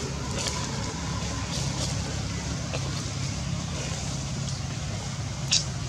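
A steady low hum, with a few soft rustles of dry leaves and one sharp click about five and a half seconds in.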